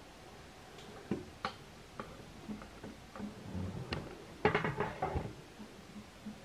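Light scattered clicks and knocks of a plastic snake-rack tub being handled, with a louder stretch of scraping and knocking about four and a half seconds in as the tub slides out.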